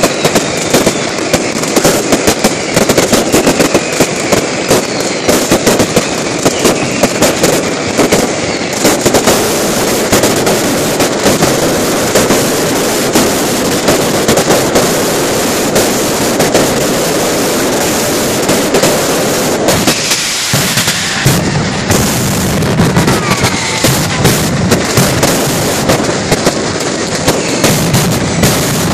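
Mascletà fireworks barrage: a dense, continuous rattle of firecrackers and bursting shells, loud throughout, with occasional whistles. About twenty seconds in it briefly thins, then comes back with heavier, deeper bangs.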